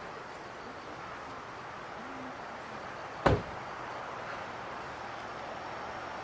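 A single sharp knock about three seconds in, over a steady faint outdoor hiss.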